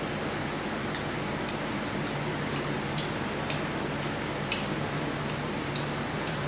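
Eating sounds of a mukbang: irregular sharp clicks and smacks of chewing and mouth noise, about two a second, over a steady background hiss.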